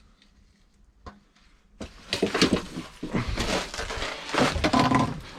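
Quiet for about two seconds, then a loud, dense run of knocking, clattering and rustling as a fish is hauled up out of the ice hole and handled.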